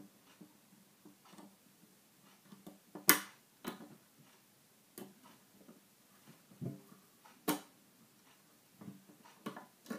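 Lock-picking tools working inside a small two-lever brass padlock: scattered light metal clicks and scrapes, with the sharpest clicks about three seconds in and again about seven and a half seconds in.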